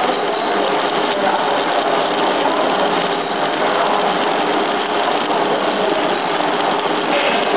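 Electric arc welding on the steel screw propeller of a charcoal briquette machine during its repair: the arc crackles and hisses steadily without a break.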